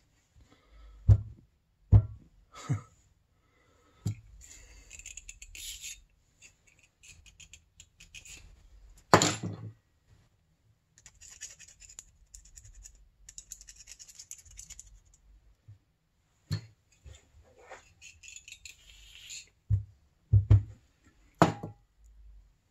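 A hand pick scraping caked carbon deposits out of the square bore of an Arctic Cat APV power valve part, in several short scratchy spells. A few sharp knocks come in between, the loudest about nine seconds in and two near the end.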